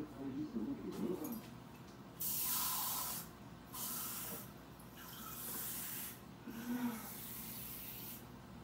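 Kitchen sink faucet running into a mug in several short spurts, turned on and off, the first spurt about two seconds in the loudest.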